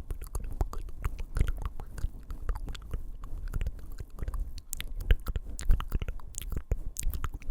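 Close-miked ASMR mouth sounds and fingers tapping on the microphone: a dense run of quick wet clicks and taps, some landing as deep thumps.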